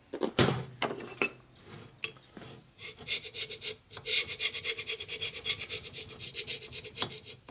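Steel hand scraper scraping rapidly back and forth across the top of a black-coated Harley Evo cylinder, taking off deposit buildup. There are a few knocks in the first second or so as the cylinder is set down on the bench, and the quick, even scraping strokes run from about three seconds in.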